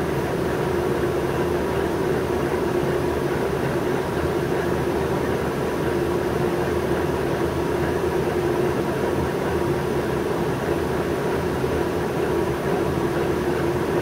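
New Flyer C40LF transit bus's natural-gas engine idling steadily while the bus stands still, heard from inside the passenger cabin as an even low rumble with a constant hum.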